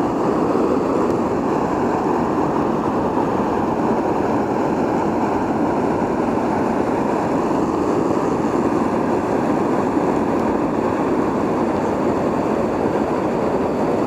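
Steady, unbroken rushing noise of water, even throughout.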